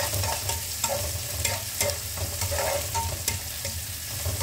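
Garlic, shallots and red chilli sizzling in oil in a non-stick frying pan as they are stir-fried, with irregular scrapes and taps of a silicone spatula against the pan.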